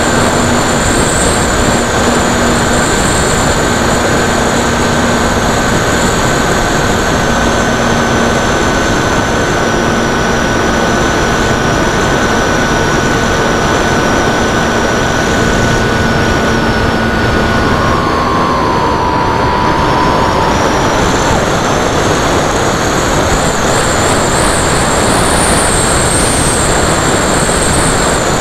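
Zeta Science FX-79 flying wing in flight, heard from its onboard camera: a steady rush of wind over the airframe with the electric motor and pusher propeller whining. The motor's pitch drops and wavers about two-thirds through, then climbs again near the end as the throttle changes.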